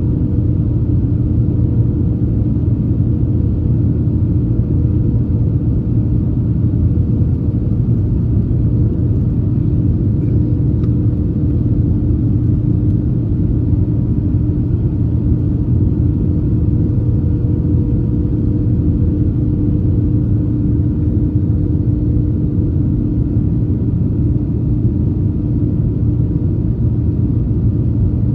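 Steady cabin noise of an Airbus A321 airliner in flight: a loud, even low rumble of airflow and engines, with a few steady hums on top.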